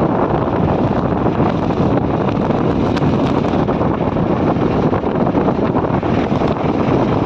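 Wind buffeting the microphone as a loud, steady rush, mixed with the running noise of travel along a road.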